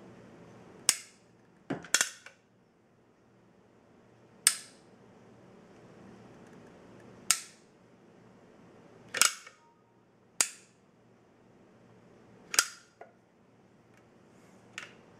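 Caulking gun clicking as its trigger is squeezed to push out clear silicone: about nine sharp clicks, irregularly spaced a second or two apart.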